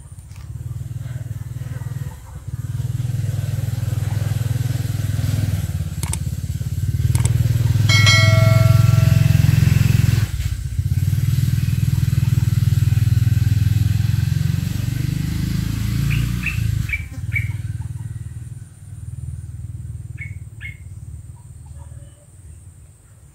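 An engine running close by, growing louder to a peak about eight seconds in and dying away about seventeen seconds in, with a brief high tone near its loudest point.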